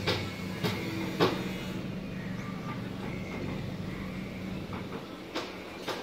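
Outdoor city background noise: a steady low hum with a few sharp knocks or clacks in the first second and a half and two more near the end.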